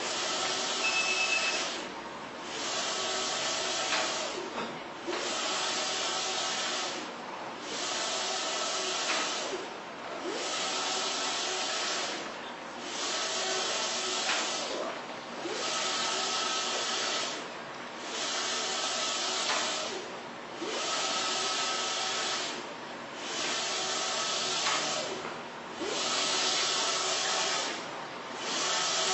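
StormJet wide-format solvent inkjet printer with Spectra Polaris 512 printheads printing: the print carriage sweeps across the media with a steady hiss and a motor whine. Each pass is broken by a short lull, about every two and a half seconds, as the carriage reverses.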